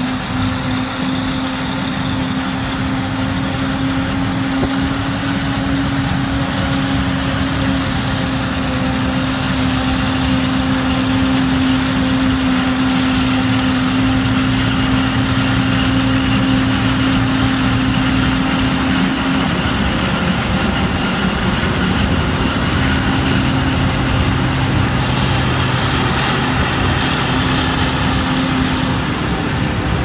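Claas self-propelled forage harvester and New Holland tractor running together at working speed while chopping maize, a loud, steady machine drone with a constant low hum.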